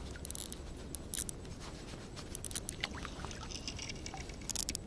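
Water splashing and trickling against the side of an inflatable packraft, as a hooked pike thrashes at the surface. Scattered small clicks and rubs come from the rod and reel being handled, with a short burst of splashing near the end.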